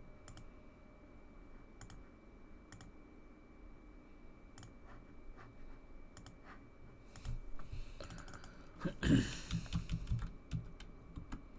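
Typing on a computer keyboard: a few scattered clicks, then a quick run of keystrokes in the second half.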